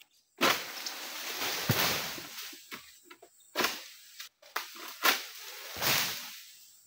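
Oil palm fronds rustling and swishing in a series of sudden noisy bursts as a pole sickle (egrek) is worked in the palm crown. The longest burst comes about half a second in and dies away over a couple of seconds.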